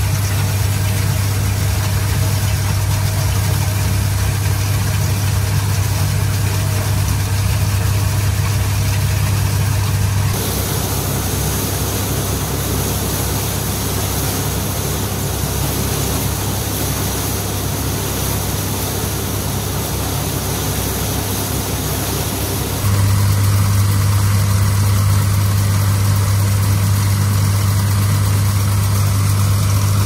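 Old Allis-Chalmers combine harvester running steadily as it works, a loud low engine hum with the hiss of its machinery. The hum drops abruptly about ten seconds in, giving way to more hiss, and comes back just as abruptly about seven seconds before the end.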